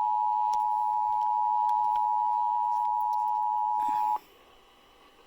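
Emergency Alert System attention signal: two steady tones sounded together, cutting off suddenly about four seconds in. It marks a required monthly test of the alert system.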